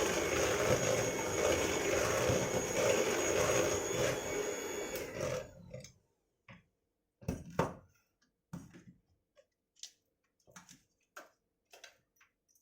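Electric mixer running steadily in cookie dough, switched off about five and a half seconds in, followed by scattered light knocks and clicks.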